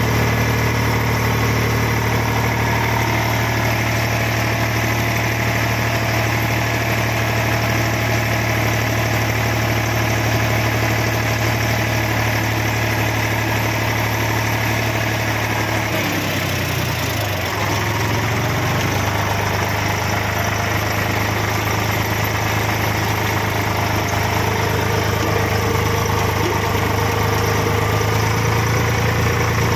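Diesel tractor engine running steadily while the tractor drives, heard from the driver's seat. About sixteen seconds in the engine note shifts and wavers for a couple of seconds, then settles back to a steady run.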